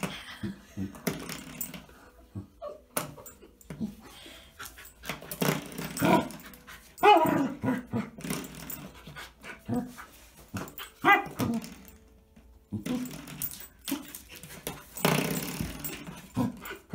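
Corgi puppy barking and whining in a string of short, excited calls, some sliding down in pitch.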